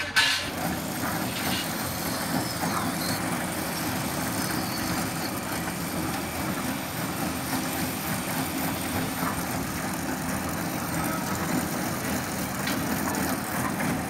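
Mobile concrete mixer's electric drive starting with a clunk just after the start, then running steadily with an even, low mechanical hum.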